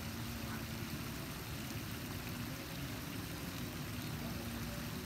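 Steady splashing of water from pond aerator fountains, with a faint low steady hum running through most of it.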